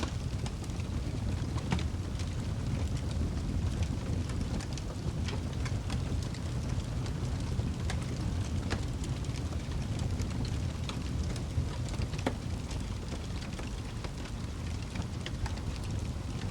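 Wood fire burning in a fireplace: a steady low rush of flame with scattered sharp crackles and pops throughout.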